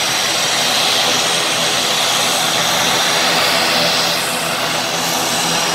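Twin-engine turboprop airliner taxiing, its engines and propellers running steadily: a constant drone under a high, hissing whine that eases slightly after about four seconds.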